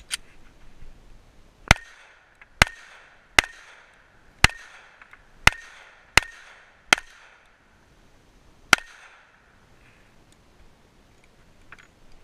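M1911 pistol firing handloaded .45 ACP rounds: eight sharp shots about a second apart, the last after a longer pause, each followed by a short echo.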